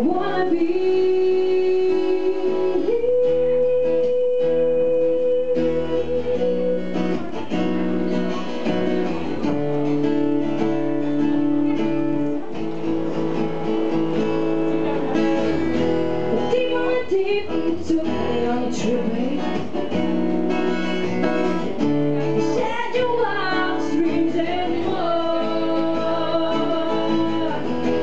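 A woman singing with guitar accompaniment, live, including long held notes.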